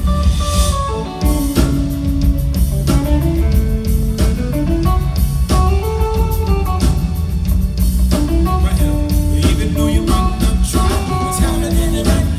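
Soul band playing, with a melodic electric guitar line over bass and drums.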